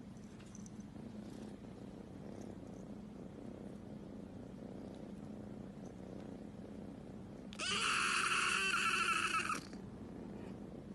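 A domestic cat purring steadily, with a single loud, wavering meow about two seconds long near the end.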